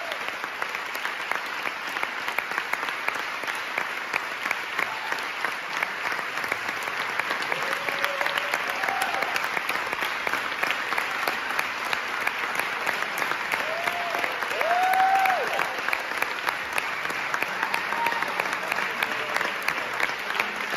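Theatre audience applauding: many hands clapping together in a steady, dense ovation.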